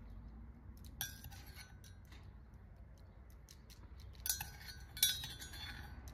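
Kitchenware clinking: three sharp clinks with a brief ringing after each, about a second in, then two more close together near the end.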